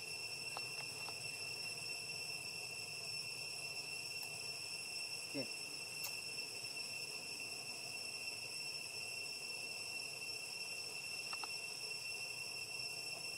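Steady, unbroken high-pitched insect drone with a single fixed whine and higher overtones, from cicadas or crickets. A brief sound falling in pitch cuts through it about five seconds in.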